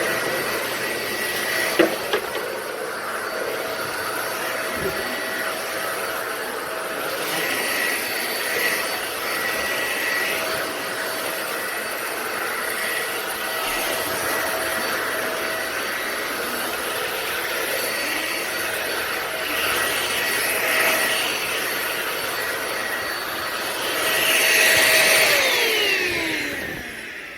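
Deerma DX700S corded vacuum cleaner running, a steady rush of air with a high motor whine, like a strong blower. Near the end it swells briefly, then is switched off and the motor winds down, its whine falling in pitch.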